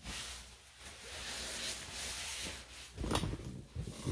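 Rubbing and rustling as the wet dog is handled, swelling and fading unevenly, with a few low knocks about three seconds in.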